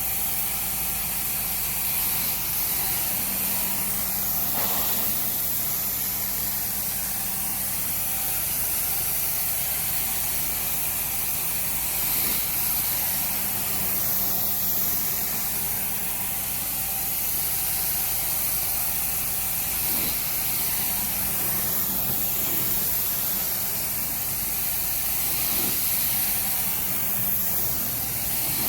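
Carpet cleaning extraction machine running: a steady hissing rush of air and water with a low hum under it.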